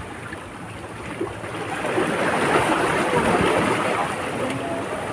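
Small waves washing in over the boulders of a rocky shore, a steady rushing hiss that swells louder about two seconds in.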